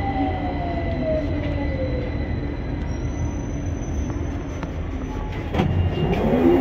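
London Underground Victoria line train heard from inside the carriage: a steady rumble with a motor whine that falls in pitch over the first two seconds as the train slows toward a station, and a few knocks near the end.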